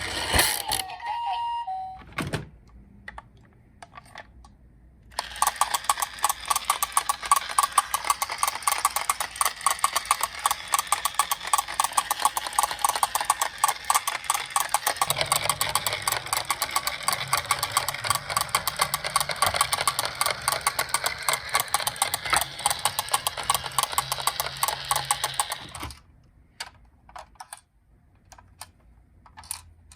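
Toy minicars clattering: a fast, steady run of many small plastic and metal clicks that starts about five seconds in and stops suddenly a few seconds before the end, leaving a few scattered clicks.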